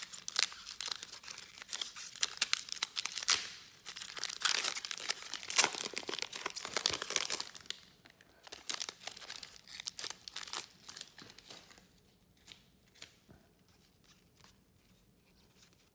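A trading-card pack wrapper being torn open and crinkled: dense rustling for about eight seconds. Scattered light clicks and taps follow, dying away about twelve seconds in.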